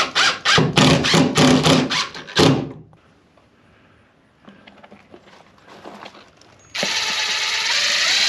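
A hand tool is worked back and forth on the panel in rapid, even strokes, about four a second, for the first two and a half seconds. After a short pause and a few light clicks, a power drill runs for about two seconds near the end.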